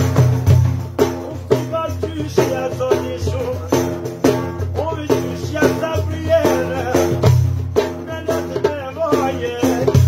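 Large hand-held frame drum beaten in a steady, driving rhythm, its jingles rattling with each stroke, under a man's singing voice.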